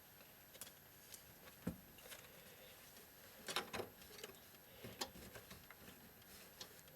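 Faint, scattered clicks and knocks of cable connectors being handled and plugged into drives inside an open PC case, about half a dozen irregular ticks.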